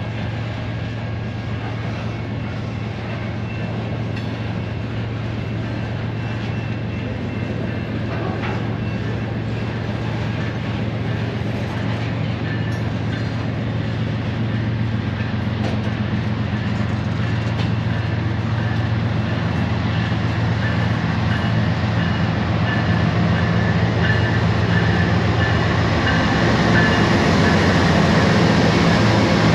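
Freight train rolling past: a steady rumble of wheels on rail under a low diesel engine hum, with a faint high wheel squeal. It grows gradually louder toward the end.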